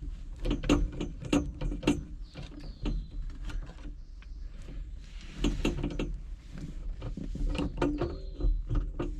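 Irregular metallic clicks, clinks and knocks of hand work on a VW Beetle's shift rod coupler: a bolt, washers and wrench handled against the shift rod in the floor tunnel, with a couple of faint short squeaks.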